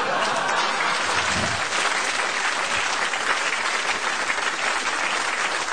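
Studio audience applauding steadily, with some laughter at the start, in response to a punchline.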